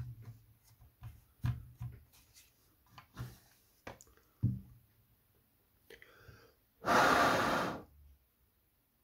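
Short knocks and clicks of hard plastic being handled as the battery is pulled off a cordless reciprocating saw whose motor has just burnt out. About seven seconds in comes a heavy breath out, lasting nearly a second, the loudest sound.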